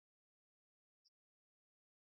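Near silence, with a single faint, very short click about a second in.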